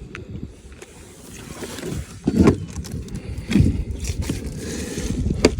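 Knocking and scraping on a kayak as a freshly landed bass and gear are handled aboard, with heavier bumps about two and a half seconds in, again about a second later, and near the end.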